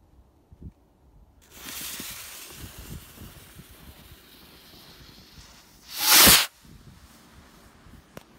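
Fuse of a small Cloudbuster firework rocket hissing and sputtering after being lit. About six seconds in the rocket launches with a short, loud whoosh.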